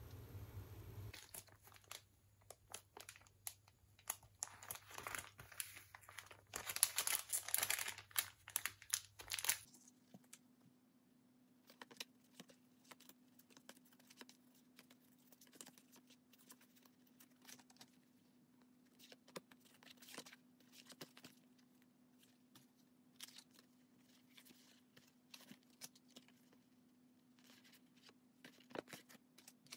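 Plastic wrapping crinkling and tearing as a package is opened, loudest a few seconds before the middle. Then quieter, scattered rustles and light taps of photo prints and postcards being handled and shuffled.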